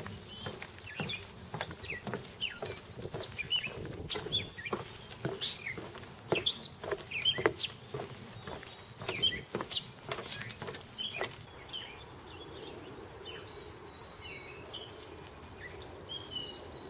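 Footsteps knocking on a wooden boardwalk in a steady walking rhythm, with small birds chirping all around; the steps stop about eleven seconds in while the chirping goes on.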